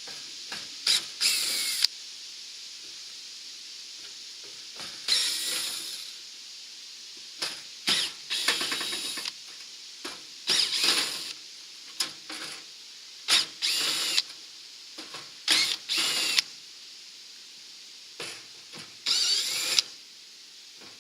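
Power drill-driver backing out the screws that hold the plastic shroud on an RV rooftop air conditioner, in about ten short runs with pauses between them.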